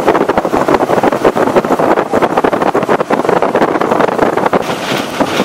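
Strong wind buffeting the microphone in loud, irregular gusts, mixed with the road noise of a moving vehicle.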